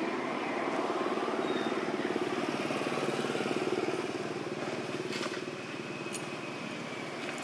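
A small engine running nearby, with a steady pulsing hum that is loudest in the first half and eases off after about four seconds.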